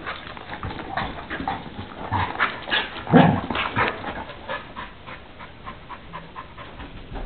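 Two dogs play-wrestling: scuffling, quick clicks and panting, with the loudest scuffle about three seconds in. It settles into quieter panting as they break apart.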